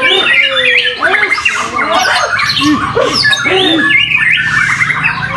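White-rumped shama (murai batu) singing a loud, varied song of whistled glides and rapid chirps, with other songbirds singing over it.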